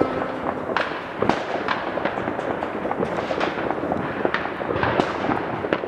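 Many fireworks going off at a distance: a continuous crackling din with sharp, irregular bangs standing out about twice a second.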